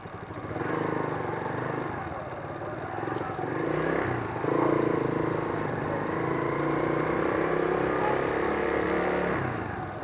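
Motorcycle engine running as the bike is ridden slowly, a steady hum that picks up a little about four and a half seconds in, picked up by a microphone inside the rider's helmet.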